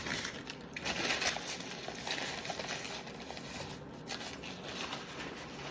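Close-up chewing of squid tentacles: irregular wet, crackly mouth noises.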